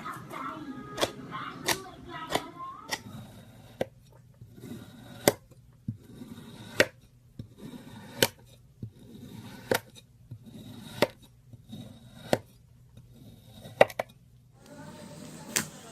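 Slime being squeezed and worked by hand, giving sharp clicking pops about once every second or so, with softer squishing between them.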